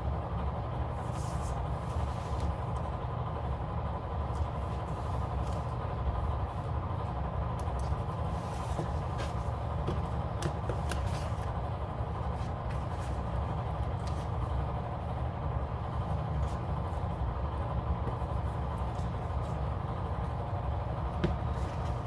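A steady low hum runs throughout, with scattered light clicks and rustles of sticker sheets and paper planner pages being handled as stickers are peeled and pressed on.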